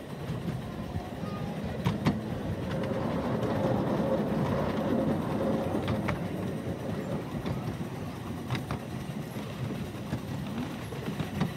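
A miniature steam railway train running past on the track. The rumble of its wheels builds to its loudest about halfway through, then eases off, with a few sharp clicks from the rail joints.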